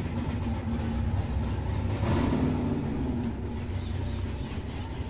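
Hot rod engine running with a steady low rumble, swelling louder briefly about two seconds in.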